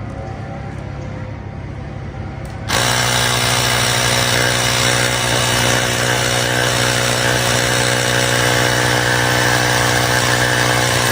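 Small electric air pump switched on about three seconds in, then running steadily with a motor hum, inflating a bicycle inner tube to find its puncture.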